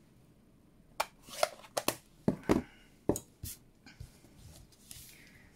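Handling noises of craft supplies on a work mat: a quick series of sharp knocks and taps as items are picked up and set down, with softer paper rustling after them.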